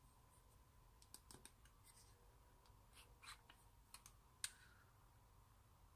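Faint small plastic clicks and rubbing as a lipstick tube is handled, uncapped and twisted up, with one sharper click about two-thirds of the way through.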